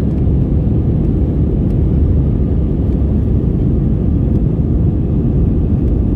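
Steady low rumble of an Airbus airliner's jet engines and rushing air, heard inside the passenger cabin shortly after takeoff.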